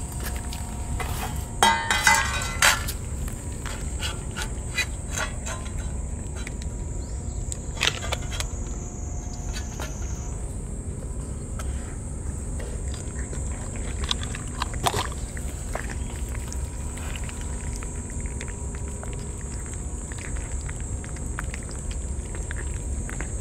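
Stray cats licking and chewing wet food from a stainless-steel dish, with scattered small wet clicks and taps against the metal, over a steady high insect drone. A brief louder cluster of sounds comes about two seconds in.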